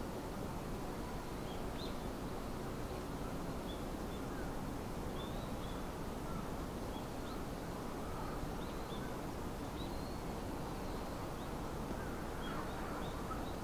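Steady low outdoor background rumble with short, faint bird chirps scattered through it.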